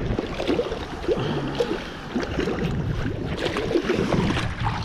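Lake water splashing and sloshing against a rock shoreline as hands lower a fish back into the water, in irregular short splashes over a low wind rumble on the microphone.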